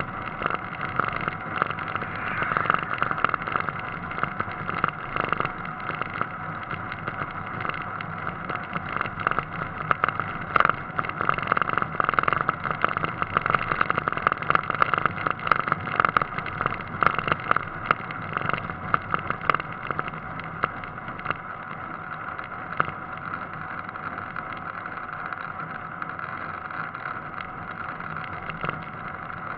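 A car driving along at road speed, heard from a camera mounted on the outside of its body: steady engine, tyre and wind noise with frequent small knocks and rattles, which thin out and leave a steadier noise after about twenty seconds.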